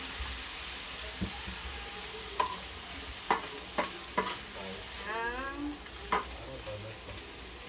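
Chicken, mushrooms and vegetables sizzling in oil and soy sauce in a frying pan while being stirred, the utensil knocking sharply against the pan about six times.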